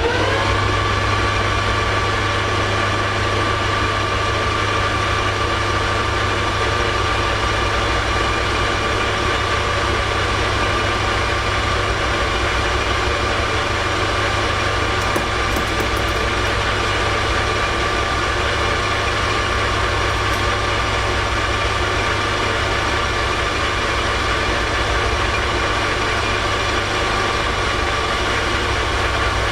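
Metal lathe running under power, its motor and gearing whine rising as it spins up at the start and then holding steady, while the parting tool is fed in to cut off the part.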